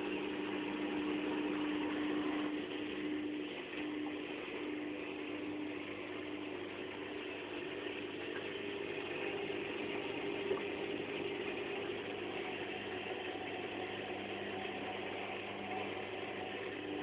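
Washing machine running: a steady mechanical hum with a few constant tones and a soft wash of noise.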